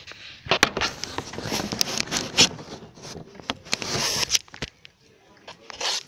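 Handling noise from a phone being moved about: a dense run of rubbing scrapes and sharp clicks on the microphone, easing off for a moment about five seconds in.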